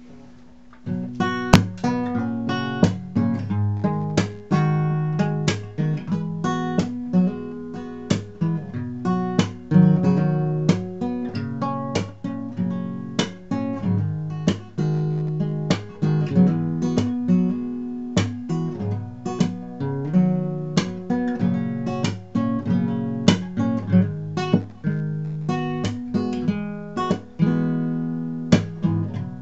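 Acoustic guitar fingerpicked, a steady stream of plucked notes over ringing bass strings, starting about a second in.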